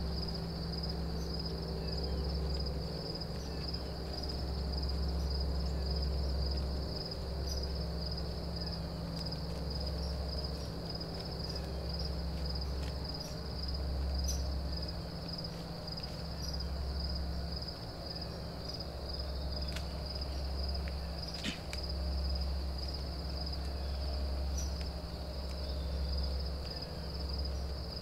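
Outdoor ambience: a steady, high insect trill with a fast even pulse, over a low rumble that swells and fades every few seconds.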